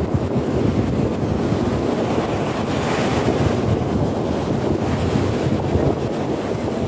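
Sea surf breaking and washing up a sandy beach, with wind buffeting the microphone. The hiss of the surf swells briefly about three seconds in.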